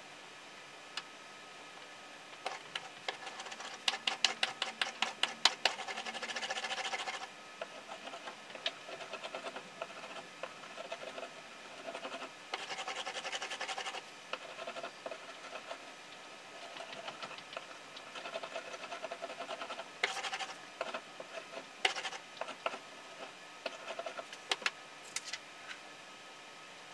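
Rubber brayer rolled through tacky black printing ink over an ink slab and a carved oak woodblock: a rapid fine crackle in repeated back-and-forth strokes, loudest in the first few seconds. Near the end come a few sharp clicks as the roller and tools are set down and picked up.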